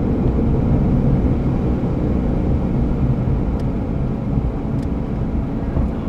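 Vehicle driving with steady road rumble and a low drone from the driver-side front wheel area, a noise the owner puts down to either a bad tire or a drivetrain fault. A stronger low hum eases off about a second in.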